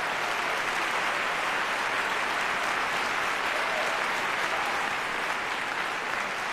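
Arena crowd applauding steadily.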